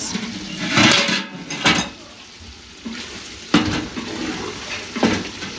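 A wooden spoon stirring beef liver pieces in a large metal pot, scraping and knocking against the pot about four times.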